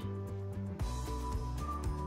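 Background music: a bass line under held notes, with no speech.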